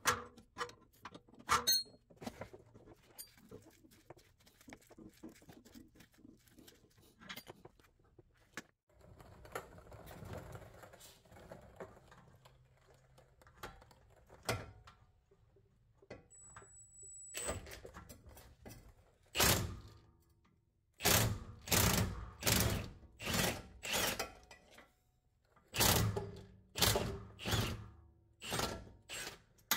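Wrench clicks and light metal rattles at a rusty rear brake caliper, then from about halfway a series of heavy knocks, about one a second: a hammer striking at the caliper to break its bolts loose.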